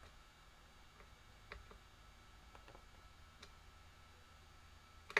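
A few faint, scattered clicks of small tools and metal parts being handled while working on a guitar, with a sharper click near the end.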